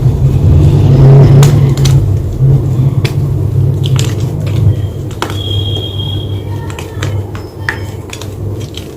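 White gym chalk being crunched and crushed close to the microphone: scattered sharp cracks and snaps over a steady low rumble.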